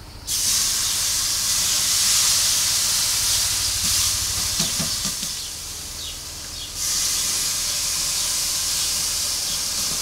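Raw beef flank steaks sizzling as they are laid on the hot grate of a charcoal-fired Monolith kamado grill. The first steak sets off a loud hiss about a third of a second in; it eases off, and the second steak brings a fresh burst of sizzling about seven seconds in.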